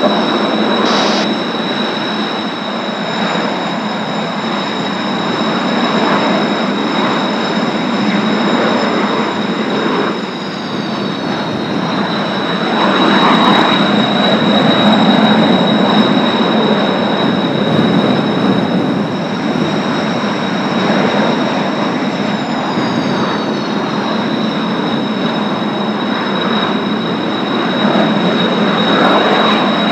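Jet engines of Kawasaki T-4 trainers running on the ground: a steady high turbine whine over a dense rushing noise, with the upper whine tones sliding down a little twice, about ten seconds in and again past twenty seconds.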